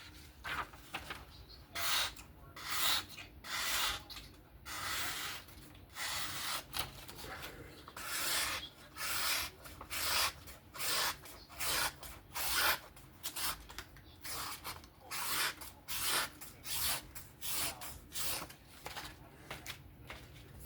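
Knife blade stroked over and over across a sharpening surface while the edge is touched up: short rasping swishes, about two a second, with a longer continuous stretch partway through.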